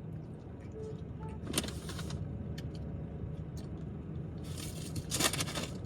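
Steady low rumble of an idling car heard from inside the cabin, with small clicks and two brief rustling bursts from a plastic yogurt bowl and lid being handled.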